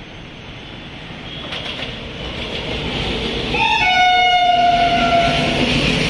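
Passenger train running with a rumble that grows steadily louder, then a train horn sounds one long blast of about two seconds, starting about three and a half seconds in.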